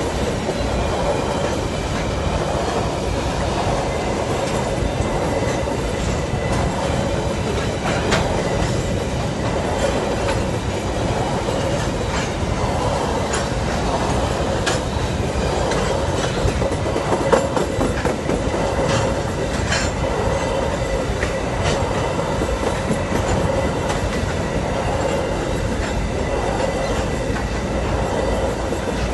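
Freight train of hopper cars rolling past close by: a steady rumble and rattle of steel wheels on the rails, with scattered clanks and a faint high wheel squeal. One louder clank comes a little past halfway.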